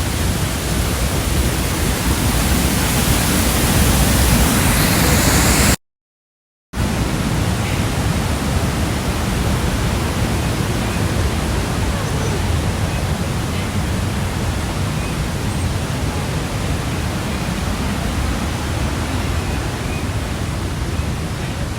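A creek waterfall rushing steadily, a dense even roar of falling water. The sound cuts out completely for about a second around six seconds in, then resumes slightly less bright.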